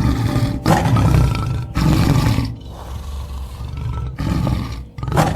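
Tiger roaring: several loud, rough roars, one about a second in, another around two seconds in, and a third near the end.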